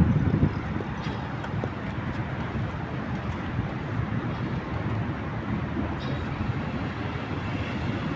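Steady city traffic noise with a low rumble and some wind on the microphone, a little louder for the first half second.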